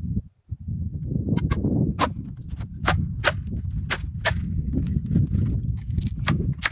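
A green bamboo pole being split lengthwise by hand: a run of about a dozen sharp, irregularly spaced cracks as the fibres give way, starting about a second and a half in, over a low rustling of handling.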